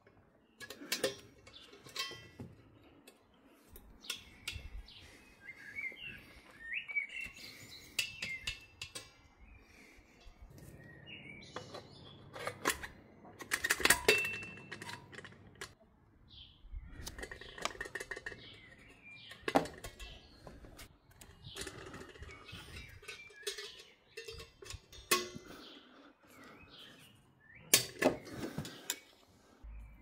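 Irregular metal clicks, clinks and knocks of hand work on metal parts, with several louder knocks. Birds chirp in the background.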